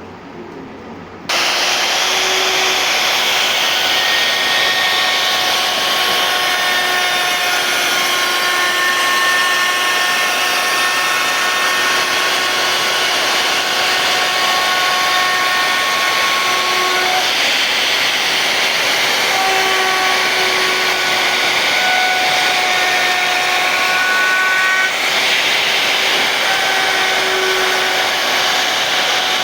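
CNC router spindle cutting wood: a loud steady whine over cutting noise. It starts abruptly about a second in, and its tones shift in pitch every few seconds.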